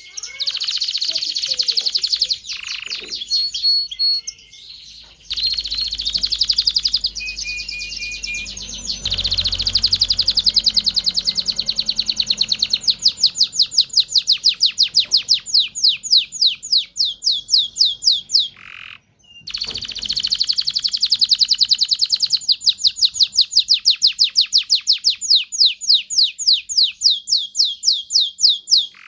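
Male canary singing: long rolls of rapidly repeated high notes, about six a second, broken by short pauses, one about two-thirds of the way through.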